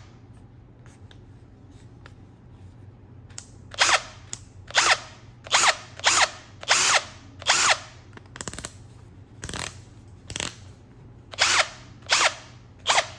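Bosch 18-volt brushless cordless drill's motor spun up in about a dozen short trigger pulls, each lasting under half a second, starting about three and a half seconds in.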